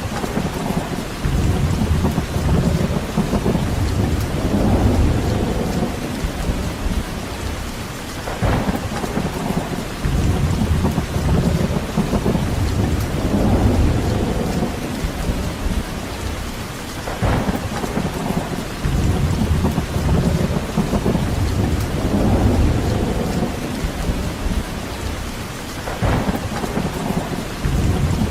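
Steady heavy rain, with low rumbling swells that rise and fall every four to five seconds and a brief sharper crackle about every eight or nine seconds, like distant thunder or gusts of wind in the trees.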